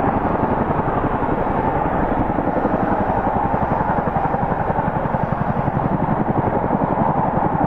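CH-47 Chinook tandem-rotor helicopter flying low and slow, its twin rotors giving a loud, steady, rapid blade chop.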